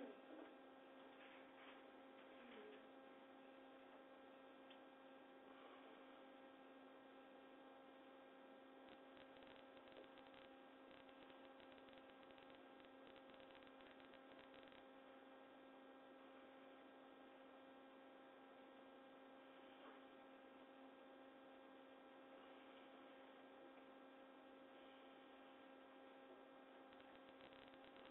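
Near silence: a faint steady electrical hum, with a few faint clicks in the first couple of seconds.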